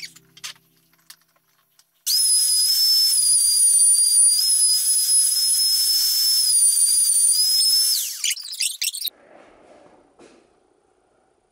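A loud, steady, high-pitched whistle over a hiss starts about two seconds in and cuts off about six seconds later with a brief falling tail. A few light scrapes follow.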